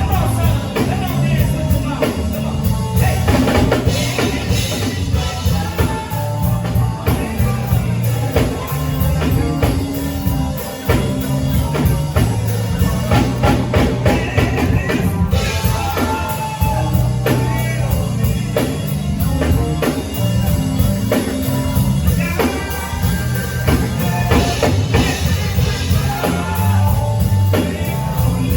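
Live band music with a drum kit and a heavy bass line, and a singing voice over it.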